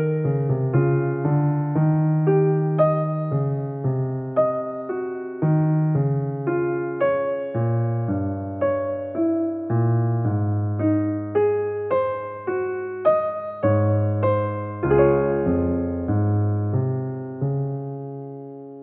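Background music: a solo piano playing a slow melody over chords, each note struck and dying away, ending on a chord left to fade out near the end.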